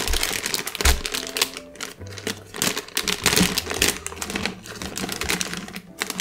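Plastic candy bag being torn open and handled, crinkling and crackling in a dense run of small rustles and clicks.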